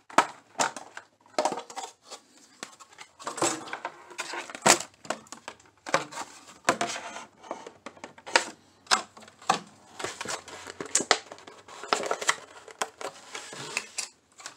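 Thin clear plastic blister packaging being pried apart and handled, giving irregular crackles, clicks and crinkles.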